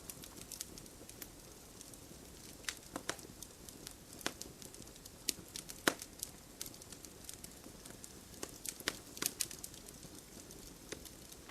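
Wood campfire crackling, with sharp, irregular pops over a steady faint hiss.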